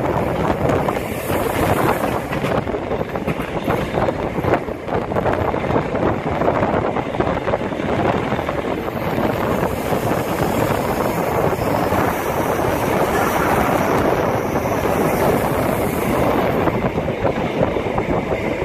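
Steady running noise of a moving passenger train, an even rumble and rush of wheels on rails and passing air, heard from inside the carriage.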